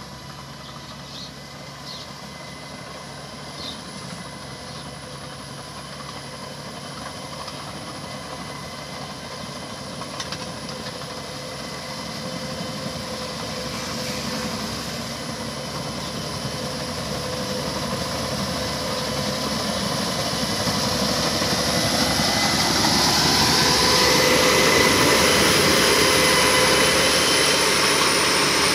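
Engine of a small crawler tractor running steadily while it tills a flooded, muddy paddy field. It grows steadily louder as the machine comes close and is loudest in the last few seconds.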